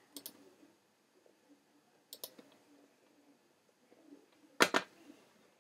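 A few computer mouse clicks separated by near silence: a faint click just after the start, another about two seconds in, and a louder double click about four and a half seconds in.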